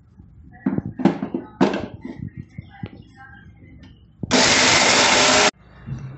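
Preethi mixer grinder running in one short burst of about a second, grinding roasted dry red chillies with salt into powder, then cut off suddenly. Before it come a few knocks of the steel jar being handled and set on the base.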